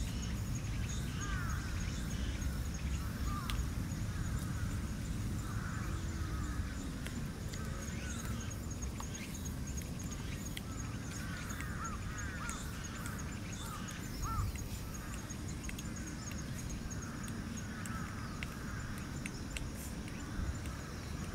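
Four-week-old Shiba Inu puppies squeaking and whimpering while they nurse, in many short high cries that bend up and down, over a low steady outdoor rumble.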